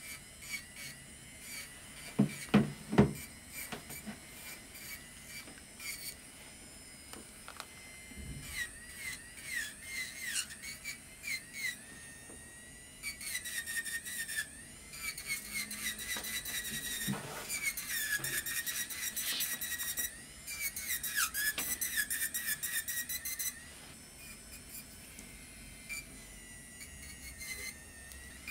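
Electric nail drill (e-file) whining at high speed, its pitch dipping and recovering each time the bit is pressed against the gel. For about ten seconds from the middle it is louder, with a rapid grinding rasp as the bit works the gel off the nail. A few sharp knocks near the start.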